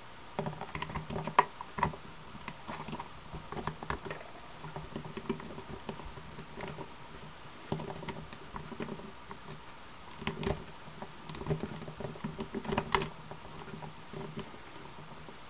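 Hands handling a plastic action figure, with small scattered clicks, taps and scrapes as it is fitted onto its display stand.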